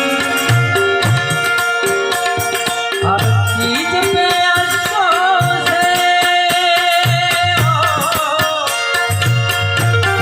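Instrumental interlude of a Hindi film song: held harmonium chords over a repeating low drum beat. Through the middle a wavering melody line slides up and down in pitch, then drops out near the end.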